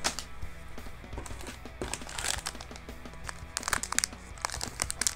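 Plastic snack wrappers crinkling as they are handled and shuffled in a box, in scattered bursts that become denser and sharper near the end, over a faint low steady hum.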